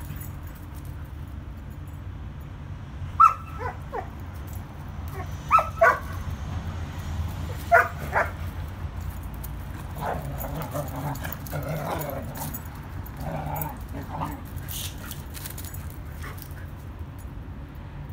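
Border collies playing: short, sharp barks, several coming in quick pairs, with softer yips and whimpers later as the dogs wrestle, over a steady low rumble.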